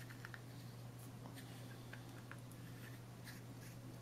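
Faint small clicks and light scrapes of a Kellner eyepiece's metal barrel being handled and screwed back on by hand, over a steady low hum.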